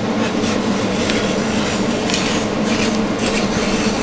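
Rotary cutter rolling along a straight edge and slicing through 8-ounce twill fiberglass cloth, in irregular hissy strokes, over a steady background hum.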